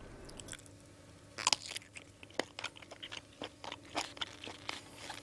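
A person chewing a bite of sausage with the mouth close to the microphone: irregular crunching clicks, beginning about a second and a half in.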